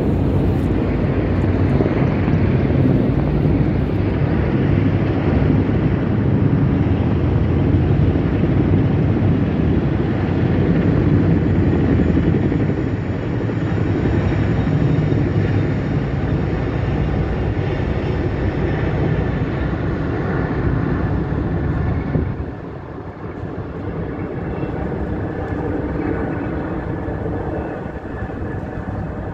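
Formation of low-flying aircraft passing overhead: a loud, steady engine rumble that eases off a little about 22 seconds in.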